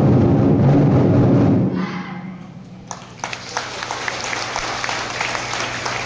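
Loud performance music with heavy drumming ends in the first two seconds, then an audience applauds with scattered clapping.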